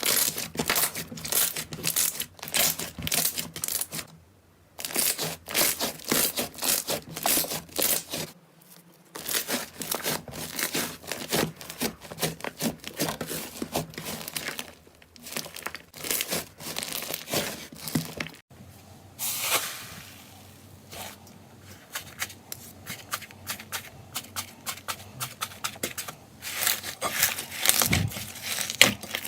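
Hands squishing and pressing slime: a dense run of sticky crackles, pops and clicks, broken by a few brief pauses.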